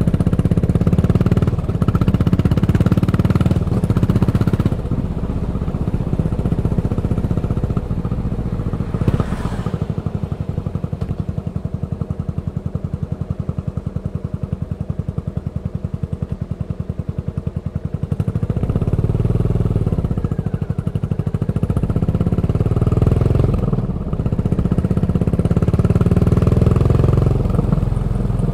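Yamaha SR400's single-cylinder four-stroke engine through a Goods Tapered Corn slip-on muffler, riding under way. Its exhaust drops to idle with a slow, even beat in the middle, then revs up and pulls away again.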